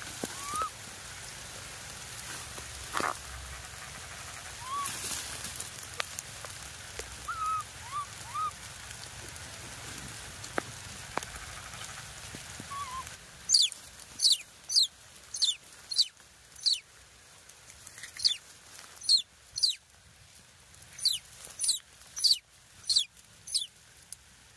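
Baby monkey squeaking: loud, shrill calls, each sliding down in pitch, repeated in quick groups of two or three from about halfway through. Before that there are only faint short chirps and light rustling.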